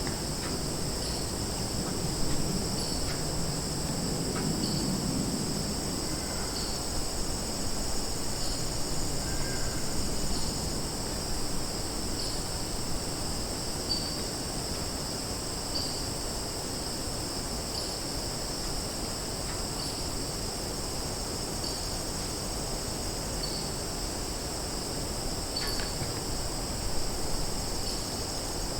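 Summer forest ambience: a steady, high-pitched insect chorus. A low rumble fades out over the first few seconds, and a few faint bird chirps come through.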